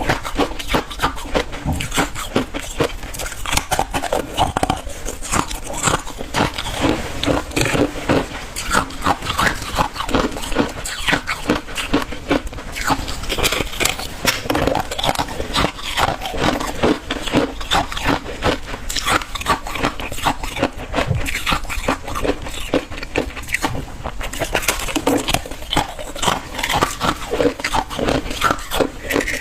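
A person biting and chewing hard freezer ice, a dense, continuous run of crunches.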